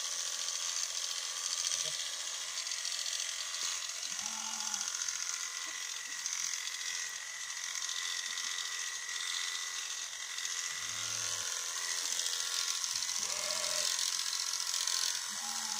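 Electric sheep-shearing clippers running steadily while shearing a sheep's fleece: a continuous buzz with a thin steady whine.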